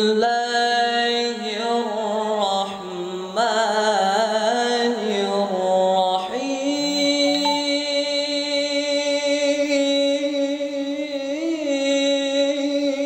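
An adolescent boy's voice reciting the Quran in tilawah style into a microphone, drawing each syllable out into long melodic held notes. About six seconds in it rises to a higher note and holds it to the end, with a brief ornament near the end.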